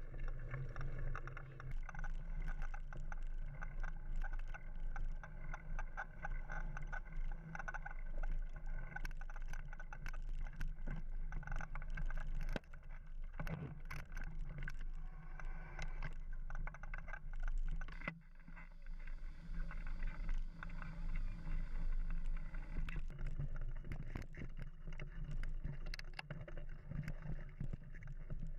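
Mountain bike riding over a dirt trail: a steady rumble of tyres and wind on the microphone, with frequent rattles and knocks as the bike goes over bumps.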